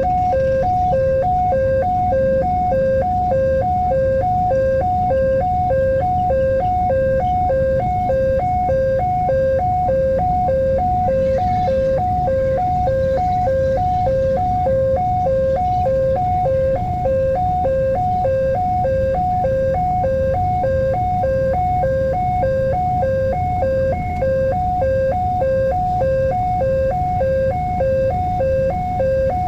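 Indonesian railway level-crossing warning bell sounding its electronic two-tone alarm, alternating steadily between two notes over a low rumble from engines or traffic.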